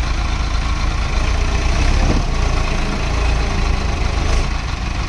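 Diesel tractor engines running steadily with a low rumble.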